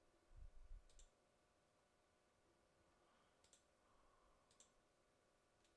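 Near silence with a faint steady hum, broken by four faint, sharp computer mouse clicks spread over several seconds, and a soft low rumble in the first second.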